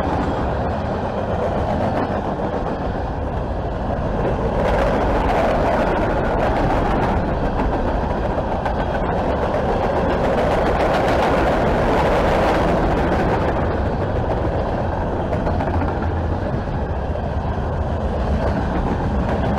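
Freight cars of a passing Norfolk Southern mixed freight train (covered hoppers, tank cars and lumber-loaded centerbeam flatcars) rolling by close at speed: a steady rumble of steel wheels on rail, louder and brighter for a stretch in the middle.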